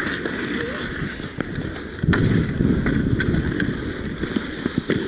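Inline skate wheels rolling on a rink floor, the rumble growing louder about two seconds in, with several sharp clacks from hockey sticks.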